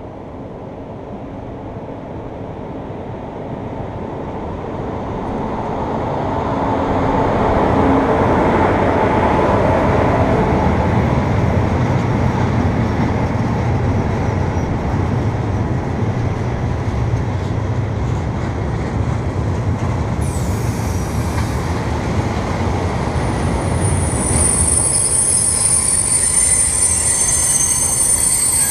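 Freight train of tank wagons passing through a station. The rumble of wheels on rail swells over the first several seconds as it approaches, then holds steady as the wagons roll by. High-pitched wheel squeal sets in near the end.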